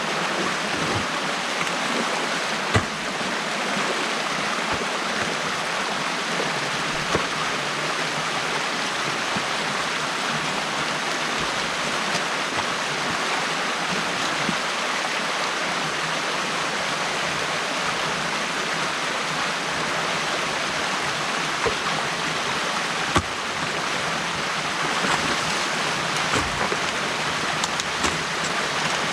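Stream water rushing steadily through the opening in a beaver dam, with a few short sharp knocks.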